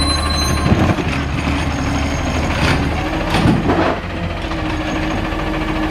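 Garbage truck engine running while the automated side-loader arm of a McNeilus ZR body lifts a wheeled waste cart and tips it into the hopper. The cart clatters about a second in and again from about three to four seconds in.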